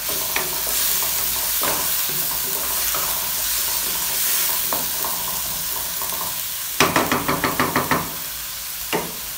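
Chopped tomatoes and onions sizzling in hot oil in a non-stick wok, stirred with a wooden spatula that scrapes and clacks against the pan. About seven seconds in comes a quick run of about nine knocks of the spatula on the pan, the loudest part, and one more knock near the end.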